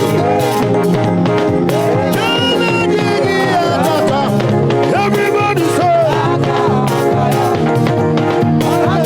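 Gospel praise music: a band playing a steady, upbeat rhythm with a voice singing over it.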